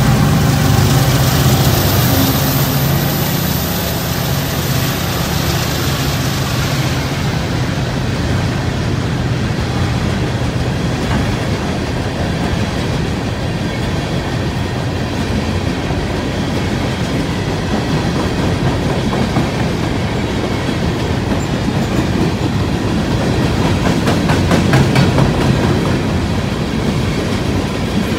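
Freight train passing. The diesel locomotive's engine is heard at first and fades over the first few seconds, then a steady rumble and clickety-clack of the coal hopper cars' wheels on the rails carries on.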